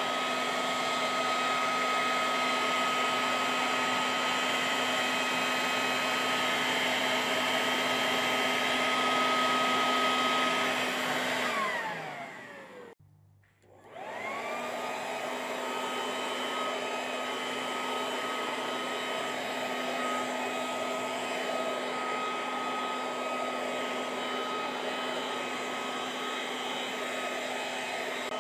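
Sun Joe SBJ601E 10-amp electric leaf blower running steadily, a high motor whine over rushing air. About twelve seconds in its motor winds down to near silence, then a second or so later spins back up to full speed and runs steadily again.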